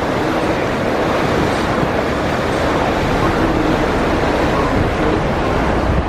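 Steady rush of wind and water on the deck of a Mersey ferry under way: wind buffeting the microphone over the wash and engine of the boat.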